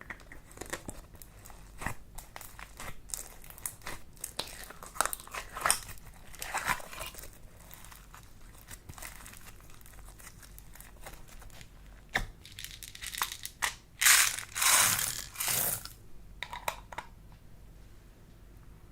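Slime mixed with clay being kneaded and pressed by hand: a run of small crackles and pops, then three louder, longer crackling bursts about fourteen to sixteen seconds in.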